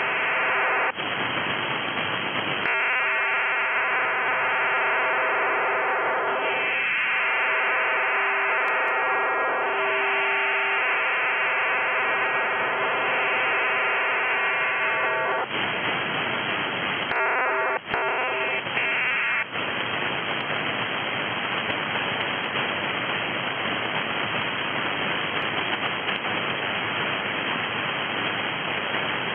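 HF radio data signal received on single sideband: a Skyfax multi-tone file-transfer modem, a dense chord of many steady data tones. It breaks briefly about two-thirds of the way through, then stops about 19 seconds in, leaving steady radio static hiss once the file transfer is complete.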